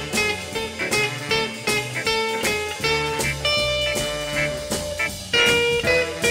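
Background music: an instrumental with plucked guitar and a steady beat.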